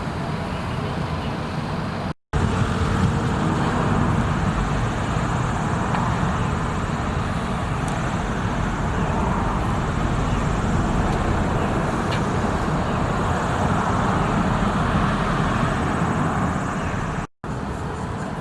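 Steady traffic noise with a low rumble. It cuts out for a moment about two seconds in and again near the end.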